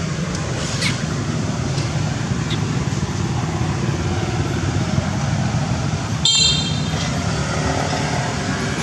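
Steady low rumble of motorbike traffic running close by, with one short, shrill high-pitched sound about six seconds in.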